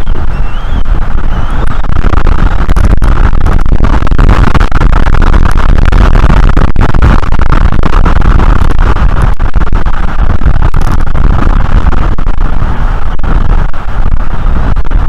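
Strong wind blowing over an outdoor nest-camera microphone: a loud, steady rushing noise, heaviest in the low end, with no letup.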